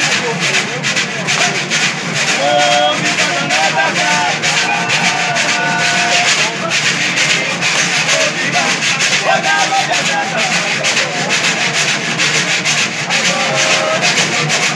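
Cururu music: a ganzá, a notched bamboo scraper, rasped in a fast, steady rhythm along with violas-de-cocho, and men's voices singing in short phrases at times.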